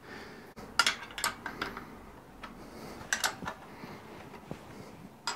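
A few light metal clicks and clinks as a chuck and small rotary table are handled on a pillar drill's cast-iron table while the workpiece is adjusted under the cutter. They are scattered, with a cluster around a second in and another around three seconds in. The drill itself is not running.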